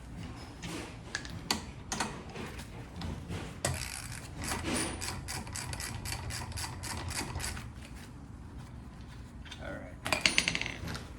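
Hand socket ratchet clicking in quick runs as the lug nuts are spun off a car wheel, with a few sharp metallic knocks and a brief clatter near the end.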